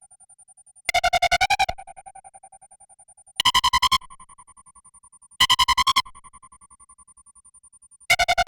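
Analog synthesizer imitating King Ghidorah's cry: four short, rapidly pulsing trilled calls, each ringing away in a fading tone. The first and last are lower in pitch than the two in the middle.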